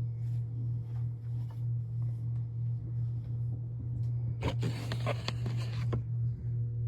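Steady low drone of a vacuum cleaner running, muffled as if through a wall. About four and a half seconds in, a close rustling scrape lasts about a second and a half.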